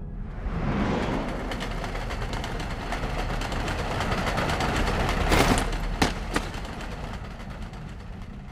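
Cartoon train sound effect: a moving train's steady rattling run, with a whoosh about five seconds in, then two sharp clicks, fading toward the end.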